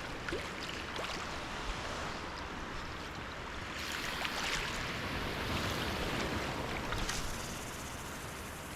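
Ocean surf on a beach: a steady rush of waves that swells and eases.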